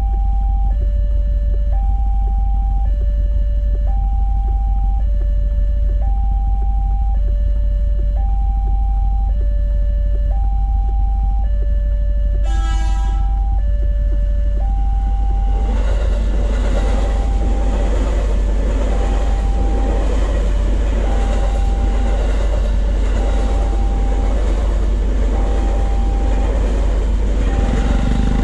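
Railway level-crossing warning alarm sounding its alternating two-tone signal, about one tone a second, over a steady low rumble. A short train horn blast about twelve seconds in. From about sixteen seconds on, the noise of an electric commuter train running over the crossing builds over the alarm.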